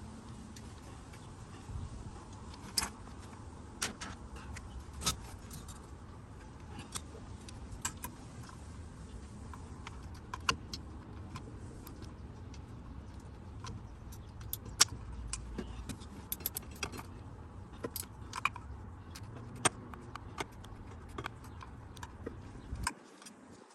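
Metal hand tools and engine parts clinking and clicking at irregular intervals as components are unbolted from the engine, over a low steady hum.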